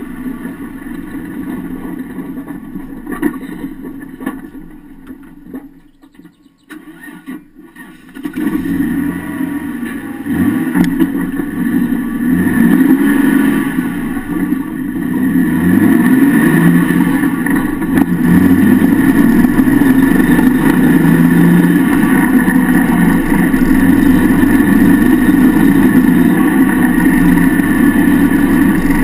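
Off-road vehicle's engine and drivetrain heard from beneath the chassis: a steady running sound that falls away to a lull about six seconds in, comes back about two seconds later, climbs in pitch several times as the vehicle gets going, then holds a loud, steady drone.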